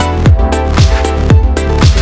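Electronic dance background music with a steady kick drum, about two beats a second, over a sustained bass line.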